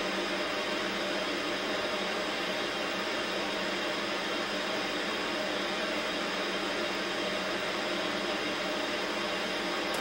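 Static from an old analog television receiving no signal: a steady, even hiss.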